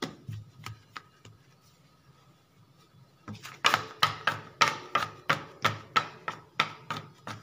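Quick, evenly spaced taps, about three a second, of a plastic dough scraper against a granite worktop as it works along a twisted rope of bread dough. A few scattered taps come first, then a short pause.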